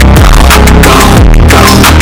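Loud hip-hop track with heavy electronic bass, its deep bass notes sliding down in pitch under a steady beat.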